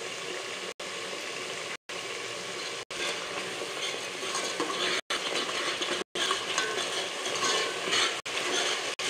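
Tomato-and-spice masala sizzling as it fries in mustard oil, with a steel ladle stirring and scraping the pot; the masala is being bhuna'd until well roasted. The sizzle and scraping get louder about three seconds in.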